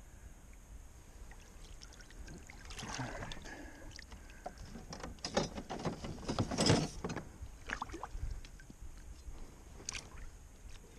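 Shallow swamp water sloshing and splashing in irregular bursts as hands and waders move through it, with a few sharp clicks among them; the loudest splash comes about two-thirds of the way through.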